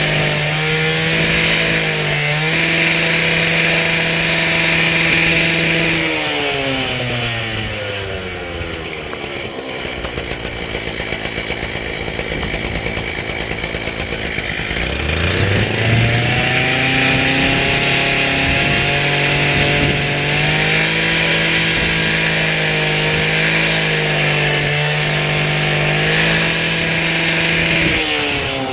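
Small two-stroke engine of a gas-powered handheld saw running at high revs. It slows down about six seconds in, idles low for several seconds, then winds back up about fifteen seconds in and holds at full speed until it drops near the end.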